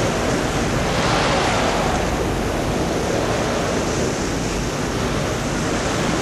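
Steady rushing of wind and surf on an open sandy beach, with wind buffeting the microphone as a low rumble; the noise swells and eases slowly.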